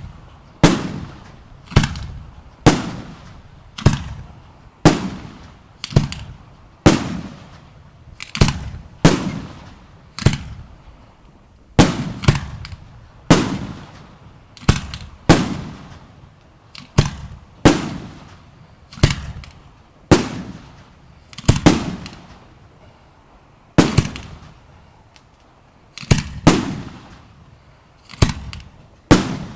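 Fireworks display: aerial shells bursting one after another, about one sharp bang a second, each followed by a short rumbling echo.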